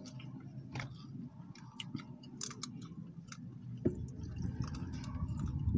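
Close-up chewing of a taco: scattered small, sharp mouth clicks and smacks over a faint low rumble.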